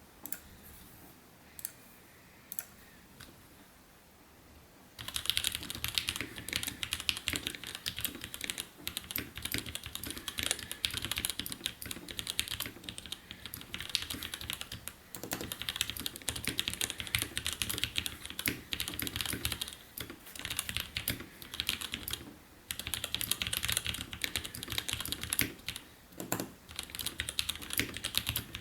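Fast typing on a 60% custom mechanical keyboard with lubed Gateron Clear linear switches, GMK keycaps and an acrylic case. A few single clicks come first. About five seconds in, rapid continuous keystrokes begin, broken by short pauses.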